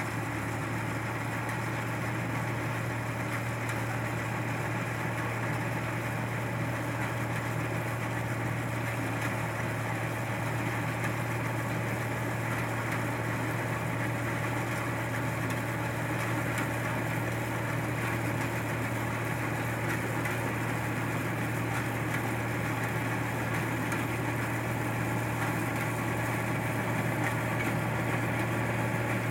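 Combine harvester's engine running steadily at a constant speed, a low even drone with no change in pitch.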